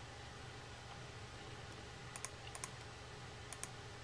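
Computer mouse clicks, each a quick press-and-release pair, about two seconds in and again near the end, over a faint steady hum.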